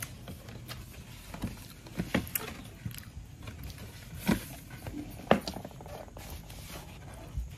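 Handling noise from a hand-held phone being moved about, with scattered short knocks and clicks, about six in all, over a faint steady room hush.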